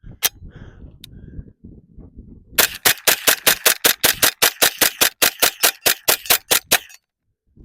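HK MP5 .22LR rifle fired semi-automatically as fast as the trigger can be pulled: a rapid, even string of about twenty shots at roughly five a second, which stops abruptly. A couple of sharp clicks come before the string.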